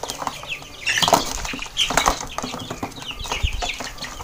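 Village chickens clucking and giving short high calls, with wing flapping and rustling as a bird is caught and handled; the flurry is loudest about a second in.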